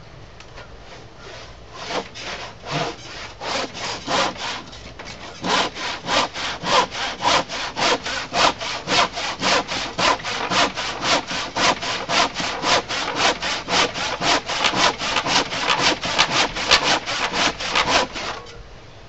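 Handsaw crosscutting the end of a thick glued-up wooden workbench top to final length. A few slow, uneven starting strokes give way to a steady rhythm of about three strokes a second, which stops about a second before the end.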